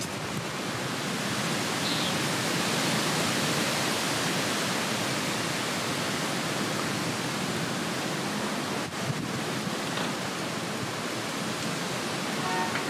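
Steady rushing noise of a storm, the hiss of rain and wind, swelling a little over the first few seconds and then holding even.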